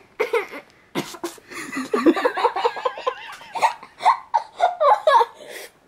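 A boy laughing in short, choppy bursts with his mouth stuffed full of marshmallows, the sound thick and muffled by the mouthful.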